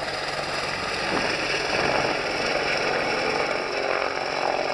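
AH-64 Apache attack helicopter flying low past, its rotor and turbine engines making a loud, steady noise that swells about a second in.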